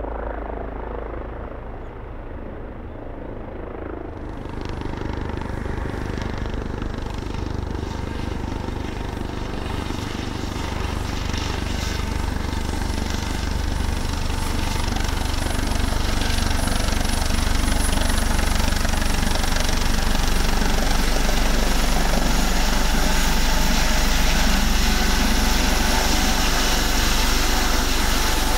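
Eurocopter EC135 helicopter hovering for the first few seconds. Then a Eurocopter AS365 Dauphin helicopter approaches to land, and its rotor and turbine noise grows steadily louder as it comes down close by.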